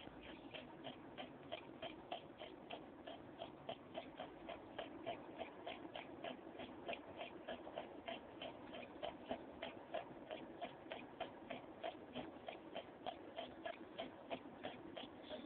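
Aquarium equipment clicking evenly at about three to four ticks a second, over a steady low rushing noise.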